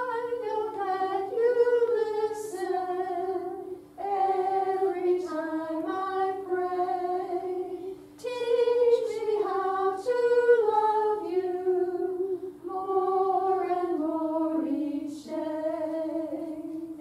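A woman singing a simple children's prayer song unaccompanied, in four phrases of about four seconds each.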